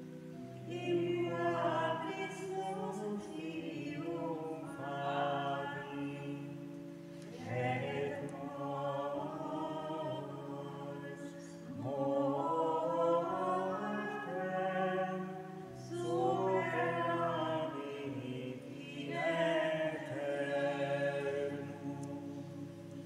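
A choir sings a liturgical chant antiphon in several phrases of a few seconds each. Steady low notes are held beneath the voices, and the singing fades near the end.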